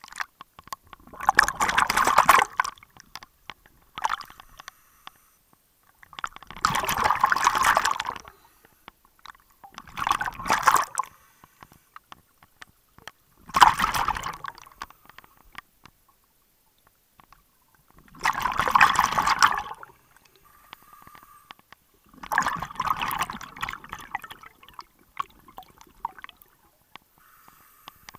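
Scuba diver breathing through a regulator underwater: six bursts of exhaled bubbles, each a second or two long, about four seconds apart, with quiet inhalations between.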